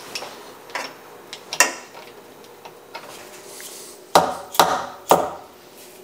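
Metal clicks and knocks from seating an aluminum part in the mill vise's soft jaws and clamping it: scattered light clicks, then three louder knocks about half a second apart near the end.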